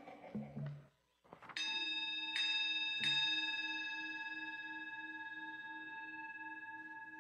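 A singing bowl struck three times in quick succession. It then rings on with a slow, slightly pulsing ring that gradually fades.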